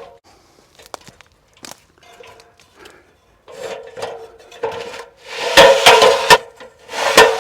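A few faint scattered clicks and knocks, then, about five and a half seconds in, a loud run of rapid, sharp knocks with a ringing tone beneath them, from tool work on the tree mount.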